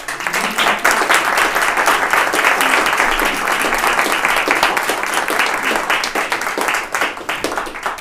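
Audience applauding. The clapping starts all at once and thins out near the end.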